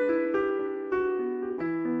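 Background piano music: gentle keyboard notes and chords struck in an even, unhurried flow, each note ringing and fading.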